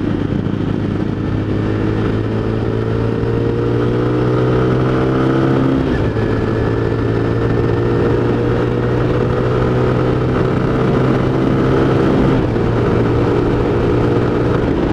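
Honda Tiger Revo's single-cylinder four-stroke engine pulling on the road, its exhaust note rising in pitch, dropping at a gear change about six seconds in, then climbing slowly again. The exhaust runs through a freshly re-riveted muffler baffle.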